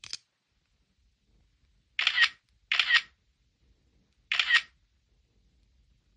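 iPhone 6s camera shutter sound, played three times as photos are taken: two shots close together, then a third about a second and a half later.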